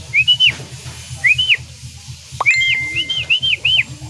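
A person whistling in short notes that rise, hold and drop sharply, in quick groups, with one longer held tone about halfway through: the handler calling returning racing pigeons down to the loft.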